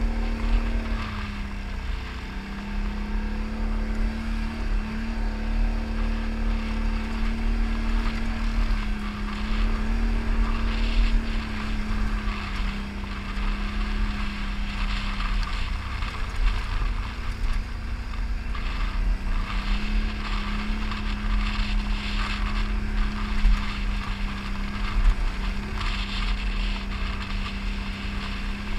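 ATV engine running while riding, heard from on board: a steady engine note that falls away for a few seconds past the middle and then returns, over a constant low rumble and hiss.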